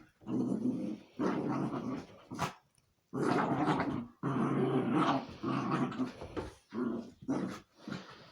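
A dog growling and grumbling in a string of low bouts, each up to a couple of seconds long with short breaks between them, the bouts turning shorter near the end.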